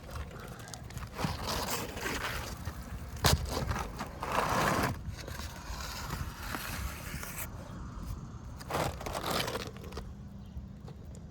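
Asphalt roof shingles being handled and lifted: uneven scraping, rustling and crunching of the gritty shingle surfaces, with a sharp knock a little over three seconds in.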